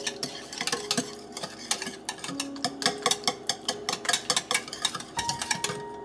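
A wire balloon whisk beating a flour batter in a ceramic mixing bowl, its metal tines clicking against the bowl's sides in quick, even strokes. Soft background music plays underneath.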